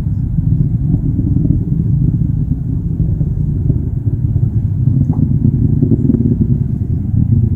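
Distant SpaceX Falcon 9 rocket, its nine Merlin first-stage engines heard from about 10 miles away as a loud, low rumble that flutters rapidly.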